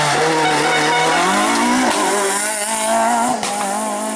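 Renault Clio rally car's engine taken hard through a tight corner. It pulls low at first, then rises as the car accelerates out, with a brief break for a gear change about two seconds in before running on higher.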